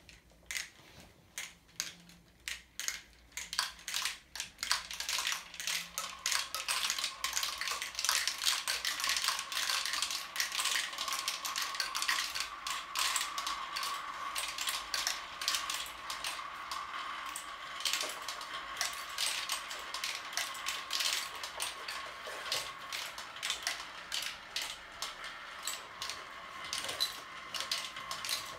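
Marbles rolling and clattering down a plastic marble-run tower. Separate clicks at first, then from about five seconds in a dense stream of clicks over a steady whirring tone as many marbles run at once.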